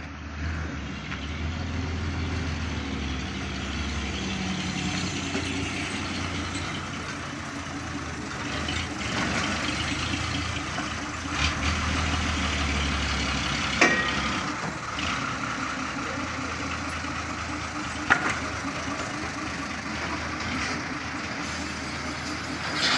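Bedford truck's diesel engine running steadily at low speed as the loaded truck moves slowly. Two short sharp clicks stand out, one a little past the middle and another a few seconds later.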